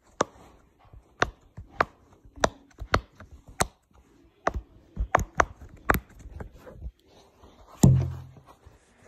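Silicone pop-it fidget toy being popped: a string of sharp, irregular pops, about two a second. Nearly eight seconds in comes a louder thump.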